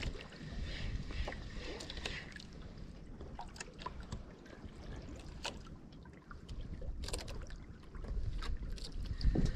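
Wind buffeting the microphone and water lapping around a small outrigger boat, with scattered light clicks and taps. The low wind rumble grows stronger near the end.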